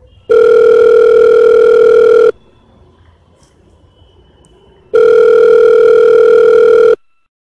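Telephone ringback tone from a call placed through a web calling site: two long, steady, buzzy beeps of about two seconds each, a few seconds apart.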